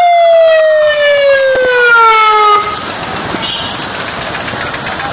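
Electronic siren sounding one long wail that falls steadily in pitch and cuts off about two and a half seconds in. A motorcycle engine keeps running underneath it and is heard on its own after the siren stops.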